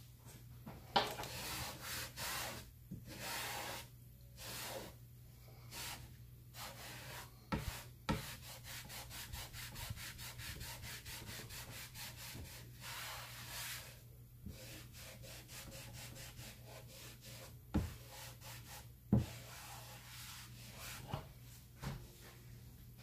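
Repeated hand-rubbing or scraping strokes on a hard craft surface: slow strokes at about one a second at first, then a quick run of short back-and-forth strokes. A few sharp knocks fall in between.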